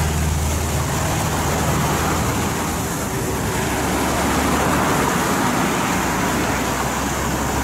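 Steady rush of wind and road noise while riding a bicycle along a road, with motor traffic humming low near the start and again in the last couple of seconds.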